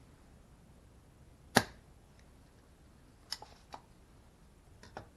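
Spring-loaded desoldering pump's plunger firing with a single sharp snap about a second and a half in, followed by a few lighter plastic clicks as the pump is handled and cocked.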